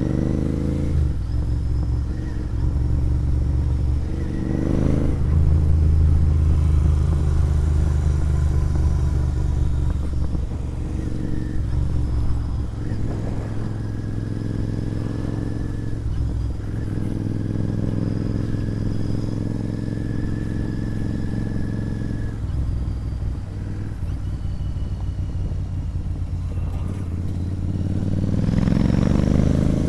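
Royal Enfield Interceptor 650's 648 cc 270-degree parallel-twin engine running through an aftermarket sport exhaust while being ridden. The exhaust note holds mostly steady at cruising revs, with a brief rise about four seconds in and revs climbing under acceleration near the end.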